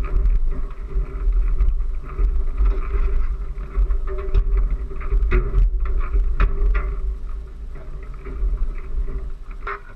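Low, buffeting rumble of water and wind against a radio-controlled model yacht's hull, picked up by a camera mounted on its deck, with scattered knocks and clicks as the boat's rig is handled and a steady hum underneath. The sound fades near the end.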